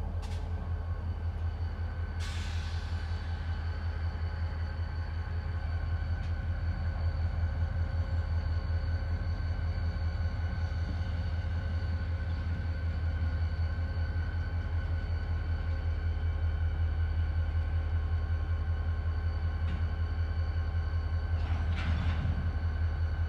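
EMD SD40 diesel locomotive's 16-cylinder two-stroke engine running steadily as the unit moves through the yard: a deep, steady rumble with a constant whine over it, growing a little louder over the first several seconds. A brief hiss comes about two seconds in and another short sound near the end.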